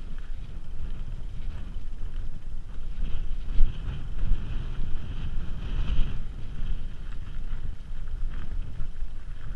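Wind buffeting a GoPro's microphone as a mountain bike rolls over rocky dirt singletrack, with tyre crunch and the bike rattling over bumps. There are sharper knocks about three and a half seconds in and again about six seconds in.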